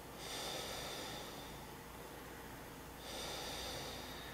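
Slow, deep yoga breathing, faint: two long breaths, the second about three seconds in.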